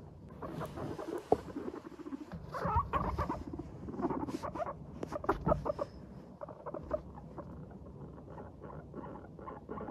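Guinea pigs chutting as they walk: runs of short, quick putt-putt notes, thickest in the first half, the contented chatter of relaxed, exploring guinea pigs.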